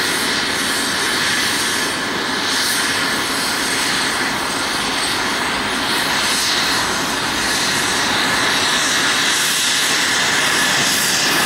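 Boeing 737 airliner's twin jet engines at takeoff thrust, a steady noise through the takeoff roll and lift-off.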